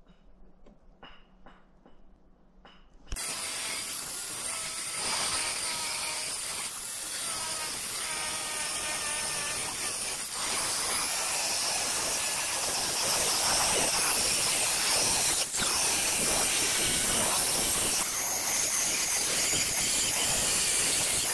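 Sprayer applying sealer: a loud steady hiss that starts suddenly about three seconds in, after a few faint clicks, and gets a little louder about halfway through.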